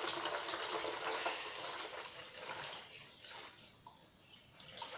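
Water poured from a plastic container into a plastic toy ball, a steady splashing stream that thins to a trickle and scattered drips about three seconds in.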